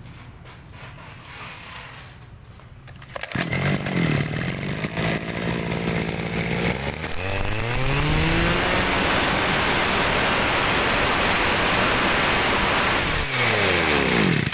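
Tanaka 28cc two-stroke brush cutter engine catching about three seconds in and idling. It is then throttled up to full revs, held steady for about five seconds, and dropped back toward idle near the end.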